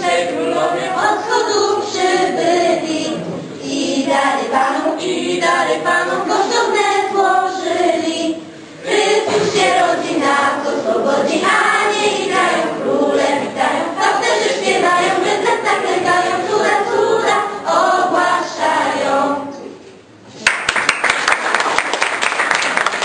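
A children's choir singing a Polish Christmas carol (kolęda), with a short break about nine seconds in. The song ends and applause starts about three seconds before the end.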